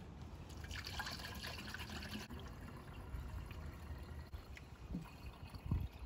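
Water trickling and dripping. It is loudest for about a second and a half starting about a second in, then fainter, with a dull knock near the end.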